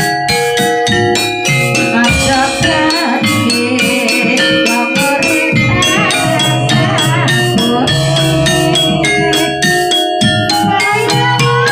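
Javanese kuda kepang (jaranan) accompaniment music: drums beating a quick, steady rhythm under gamelan-style tuned metal percussion ringing held notes.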